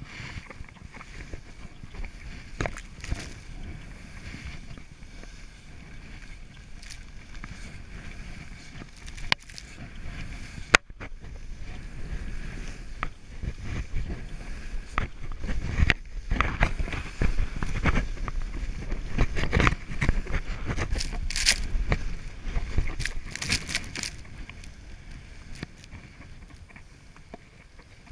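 Skis swishing and hissing through deep powder snow, with wind buffeting the body-worn camera's microphone and scattered sharp clicks and knocks. It grows louder and gustier in the middle of the run and eases off near the end.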